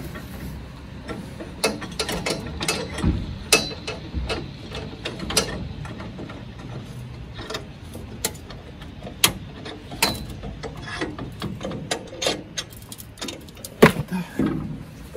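A metal clamp being worked and tightened by hand on a steel table frame: irregular metallic clicks and knocks, a few a second, with a sharper knock near the end.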